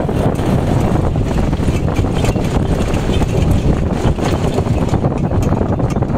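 Wind buffeting the microphone of a moving horse cart, a steady low rumble, with faint irregular ticks and knocks over it.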